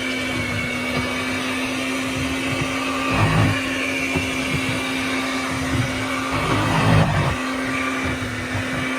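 Electric blender running steadily on its lowest speed setting, blending aloe vera gel with leftover hair conditioner into a leave-in conditioner. A steady motor hum, with louder low churning from the thick mixture about three and seven seconds in.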